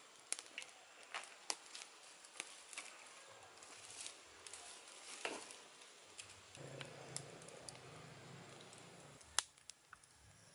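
Small wood and twig campfire crackling, with irregular sharp pops scattered throughout and the loudest pop about nine seconds in. A low rumble runs underneath from about six to nine seconds in.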